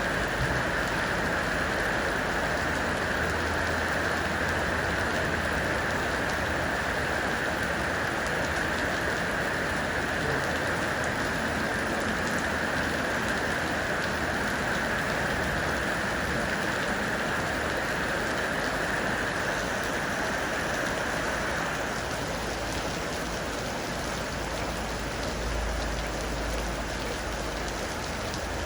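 Heavy rain falling in a steady downpour, easing slightly about three quarters of the way through.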